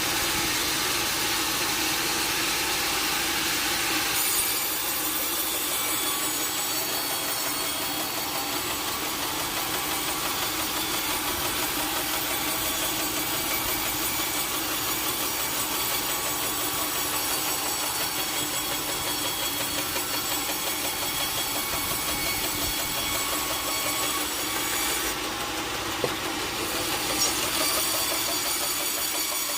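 Sawmill saw running steadily and cutting through a large log. There is a continuous mechanical drone with a hiss from the cut, which changes about four seconds in, and a couple of short knocks near the end.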